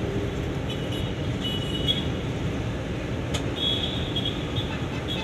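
Train running along the track, heard from the front cab: a steady rumble with short high-pitched squeaks on and off.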